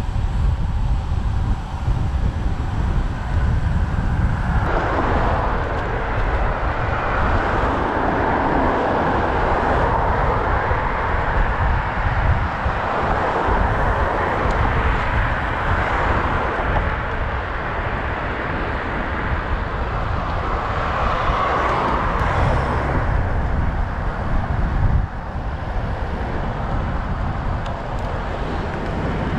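Wind rumbling on the microphone of a moving bicycle. Road noise swells and fades several times over it, starting about five seconds in.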